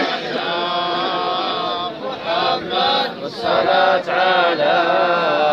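Male voices chanting a devotional Islamic praise poem (madih) in long, wavering held notes, broken by short pauses between phrases.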